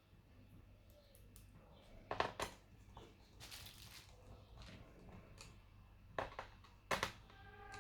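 A few sharp clicks and knocks of small hard parts being handled during laptop work, with a short rustle between them.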